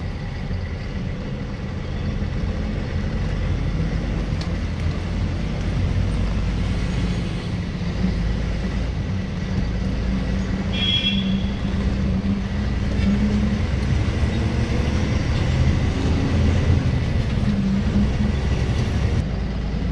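Loaded lorry's diesel engine running as the truck drives, a deep steady drone with road noise, growing louder in the second half. A brief high tone sounds about halfway through.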